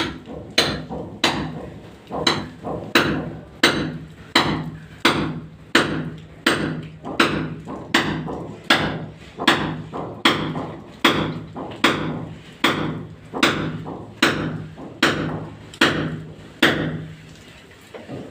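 Steady hammering during plumbing work on a toilet drain pipe: sharp, evenly paced blows about one every two-thirds of a second, stopping near the end.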